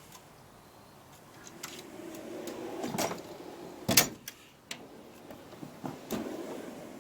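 Snap-on toolbox drawer rolling along its ball-bearing slides and stopping with a sharp knock about four seconds in, followed by a shorter slide with a couple of lighter knocks.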